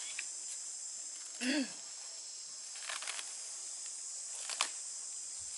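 Steady, high-pitched chirring of insects. About a second and a half in there is one short voice-like call, and a few faint clicks follow.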